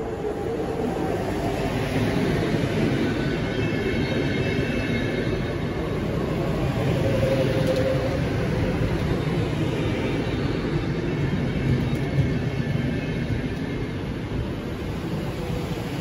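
A train running along the track through the station: a steady rumble of wheels on rails that builds over the first couple of seconds and holds, with faint high-pitched tones coming and going.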